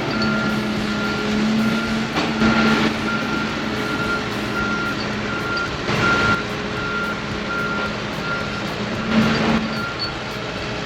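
Heavy machine's backup alarm beeping about twice a second over a steady diesel engine running, with three louder surges of machine noise.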